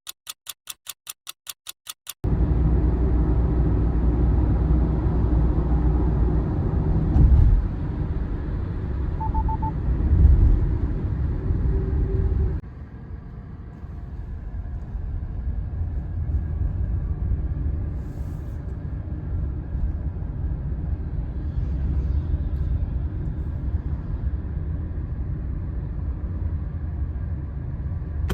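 Car on the move: a steady low rumble of engine and road noise that drops suddenly to a quieter level about twelve seconds in. It opens with about two seconds of rapid, even ticking.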